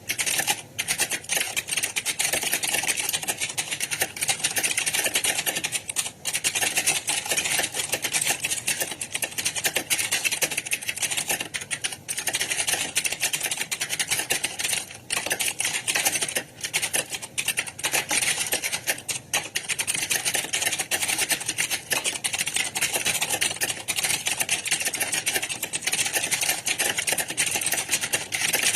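Many computer keyboards typed on at once in a typing exam hall: a dense, unbroken clatter of overlapping key clicks.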